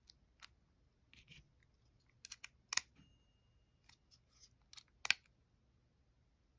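Light clicks and taps of a precision screwdriver with a T8 Torx bit being handled and set to the screws of a folding knife. Two sharp clicks stand out, one a little before halfway and one about three quarters through.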